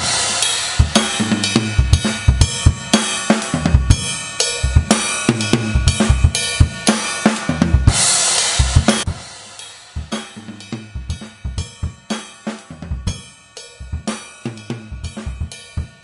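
Drum kit played, with kick drum, snare and cymbals, as picked up through a Gear One MK 1000 kick drum microphone. It starts suddenly with loud, busy playing under a wash of cymbals, then drops to quieter, sparser hits about nine seconds in.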